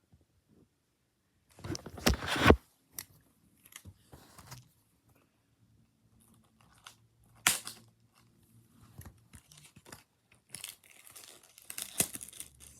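Plastic DVD packaging being torn and crinkled by hand in irregular bursts. The loudest burst comes about two seconds in, a sharp click falls about halfway through, and denser rustling follows near the end.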